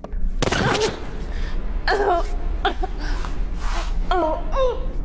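A woman gasping and crying out in pain: a sharp gasp about half a second in, then a string of short, strained cries and whimpers, over a low steady hum. The cries are an actress's portrayal of agony.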